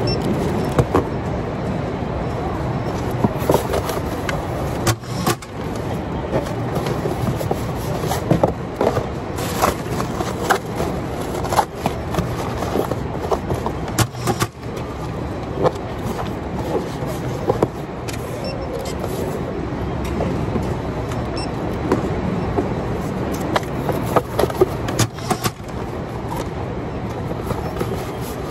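Steady hum of warehouse conveyors and machinery, with frequent short knocks, clicks and rustles as plastic-wrapped items and a cardboard box are handled at a packing station.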